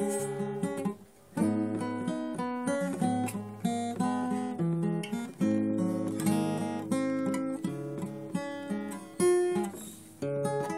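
Acoustic guitar music: plucked and strummed chords, with a short break about a second in.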